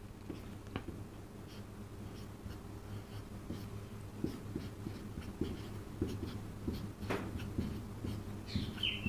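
Marker pen writing on a whiteboard: short, irregular strokes and taps as a formula is written, over a steady low hum.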